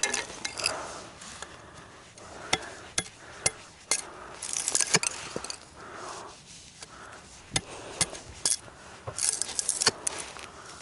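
Irregular sharp knocks and clicks, with short rustling bursts about four and nine seconds in: dry wood being broken and handled for kindling.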